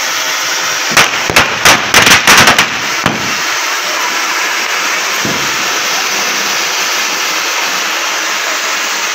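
Ground fountain fireworks (anars) spraying with a steady loud hiss. About a second in, a rapid string of sharp firecracker bangs goes off over the hiss and stops within two seconds.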